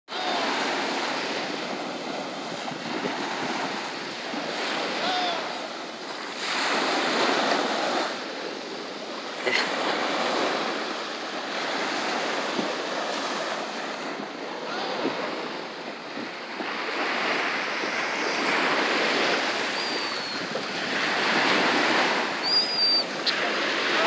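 Surf breaking on a sandy beach, the wash swelling and easing every few seconds as each wave comes in.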